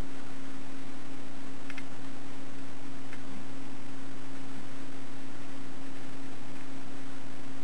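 A steady low electrical hum over an even hiss, with a few faint ticks.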